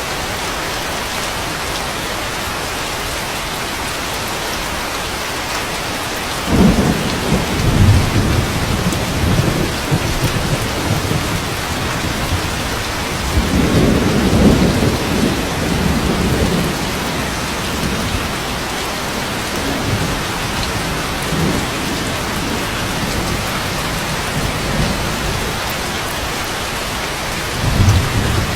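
Steady rain with rolls of thunder: a sudden rumble about six seconds in, another around the middle, and a short one near the end.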